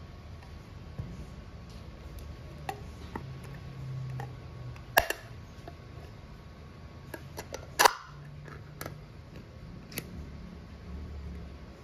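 Metal ring-pull lid on a jar being opened by hand: a sharp click about five seconds in as the tab is lifted and the seal breaks, then a louder crackling snap near eight seconds as the lid is torn away, with a few lighter ticks of handling.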